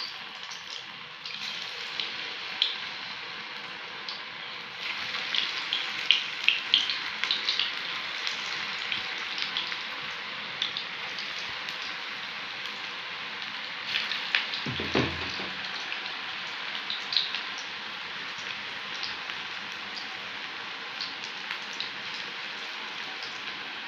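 Potato, onion and spinach pakoras deep-frying in hot oil in a steel kadhai: a steady sizzle with scattered crackles and pops, busiest about five to ten seconds in. A brief low knock about fifteen seconds in.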